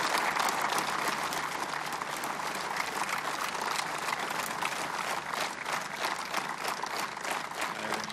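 A crowd applauding: dense clapping that thins out a little towards the end, leaving more separate claps.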